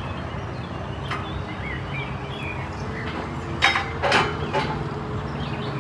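Diesel engine of a JCB telescopic wheel loader idling steadily, with birds chirping over it. Two brief sharp noises come about three and a half and four seconds in.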